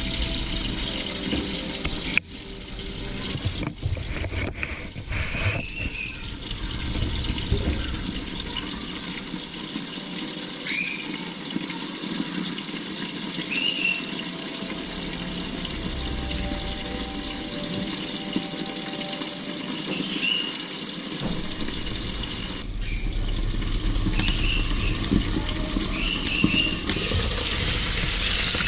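Whole floured fish pan-frying in hot oil in a covered wok: a steady sizzle, with short high squeaks now and then and a few light knocks in the first few seconds.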